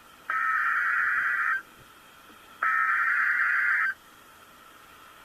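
Two bursts of an Emergency Alert System SAME header on NOAA Weather Radio: the buzzy digital screech of shifting data tones that encodes a Special Marine Warning. Each burst lasts about a second and a quarter, with about a second between them, and a faint steady tone is left in the gaps.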